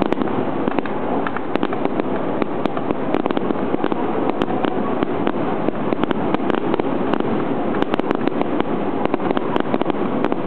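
Aerial fireworks bursting overhead: a dense, continuous run of sharp crackling pops over a steady rumbling haze.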